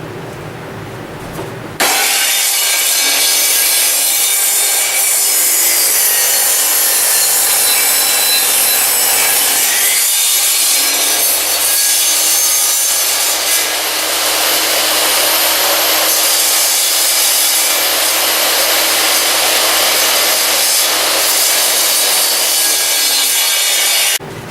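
A woodworking power tool cutting wood: a loud, steady noise that starts abruptly about two seconds in and stops abruptly just before the end.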